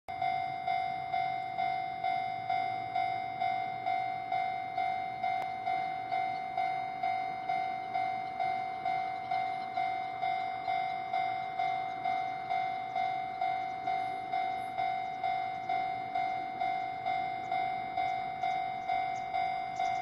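Japanese railway level-crossing warning bell ringing, an electronic clang repeating evenly about one and a half times a second. It is the crossing's alarm for an approaching train.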